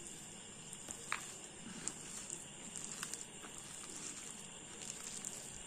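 Faint sounds of a hand mashing and mixing boiled potatoes with chopped onion in a plastic bowl, with scattered small clicks.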